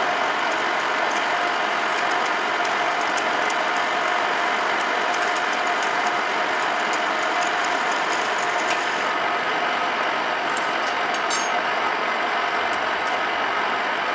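Metal lathe running steadily while its tool turns a steel shaft, with the geared whir of the machine, a steady tone and light scattered ticks.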